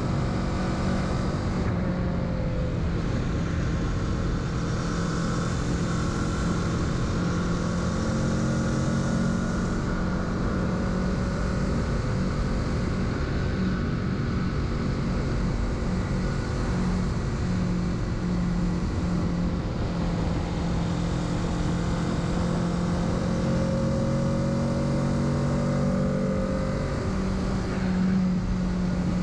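Kawasaki Z650 parallel-twin engine running under way at a fairly steady speed, its pitch rising and dipping slightly, over a constant rush of wind and road noise.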